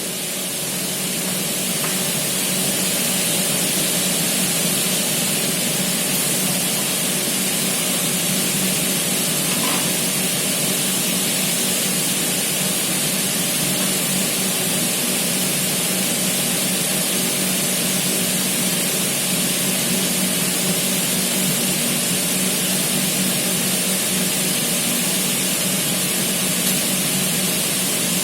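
Aluminium cutting machine running steadily: a motor hum under a strong high hiss, growing a little louder over the first few seconds and then holding even.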